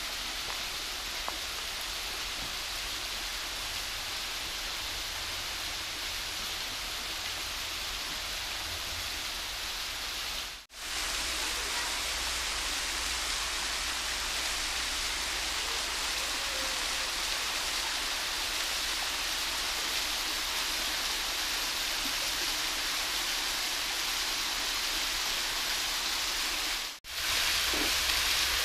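Steady rushing of a creek's running water and cascades, with no tones or rhythm in it. It breaks off in two brief dropouts, about ten seconds in and near the end, and the rush is a little louder after each.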